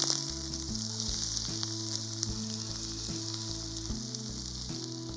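Finely chopped onion sizzling as it fries in hot oil in a pan: a steady frying hiss that eases slightly toward the end.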